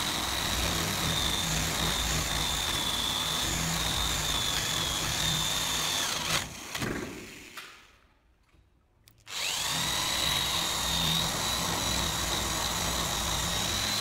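Handheld electric drill boring a hole into a wooden door, its motor running with a steady high whine. It stops about six seconds in, then starts again and spins back up about nine seconds in.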